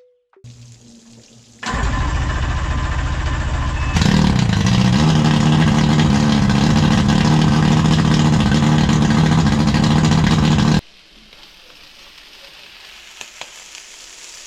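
An engine running steadily, stepping up louder about four seconds in with a strong low hum, then cutting off abruptly near the end, leaving a quieter hiss.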